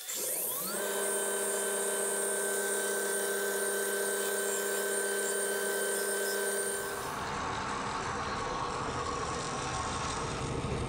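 An electric belt grinder's motor spins up with a rising whine and settles into a steady hum. About seven seconds in, that gives way to the broader, rougher running noise of a 1928 American Tool 36-inch bandsaw.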